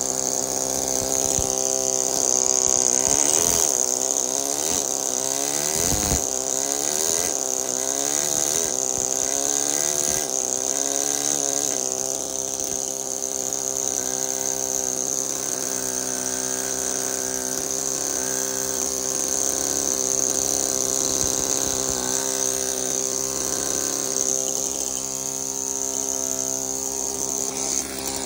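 Pneumatic carving hammer running continuously with a chisel cutting into marble, its rapid blows blurring into a steady buzz, with a steady high hiss over it. The pitch wavers now and then as the stroke rate changes under the sculptor's control.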